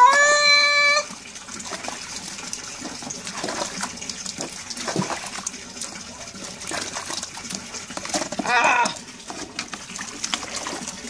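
Wet tabby cat meowing while being bathed in a bucket of water: one loud, drawn-out meow about a second long at the start, and a second, wavering meow about eight and a half seconds in, the meows taken to sound like the name "Raúl". Between them, water sloshing and splashing quietly as the cat is washed.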